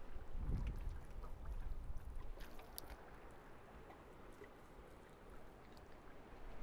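Quiet outdoor background on a boat on open water: a low wind rumble on the microphone, strongest about half a second in, with water lapping. A few faint scrapes and clicks come from a fillet knife trimming a fish fillet on the cooler lid.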